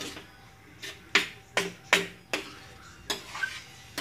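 Metal ladle knocking and scraping against the sides and rim of a metal frying pan while stirring thick chili, with about eight sharp, irregular clanks.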